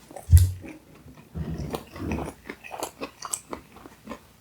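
Close-miked chewing and biting of food, with wet smacks and short crunchy clicks at an irregular pace. A loud low thump comes about a third of a second in.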